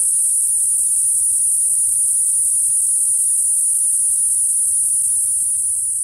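Cicada singing: a loud, continuous, very high-pitched whine that holds steady.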